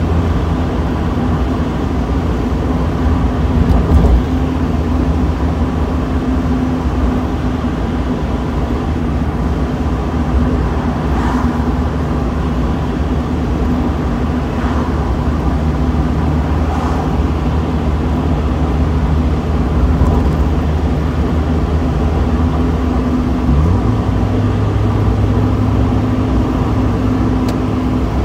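Mazda Miata's four-cylinder engine running at cruising speed with the top down, under heavy wind and road rumble. A short thump about four seconds in, and the engine note rises about 23 seconds in and again near the end as the car accelerates.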